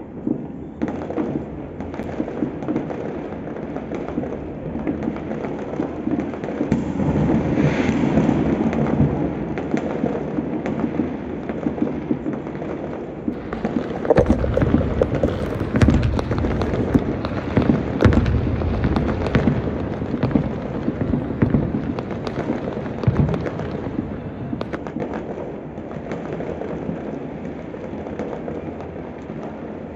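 Many fireworks going off across the city at a distance: a continuous low din of overlapping bangs and crackles, heaviest for several seconds around the middle.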